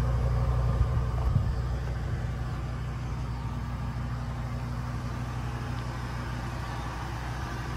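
The tow truck's 6.8-litre V10 gas engine idling steadily.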